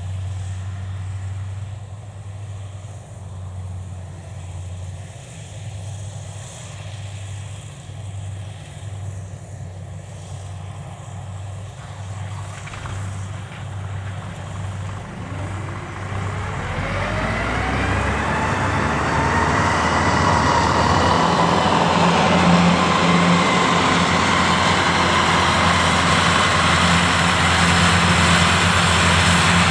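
Kubota DC70 Plus combine harvester running while cutting rice, a steady machine drone. About halfway through, a rising whine climbs and then holds, and the sound grows much louder as the harvester comes toward the listener.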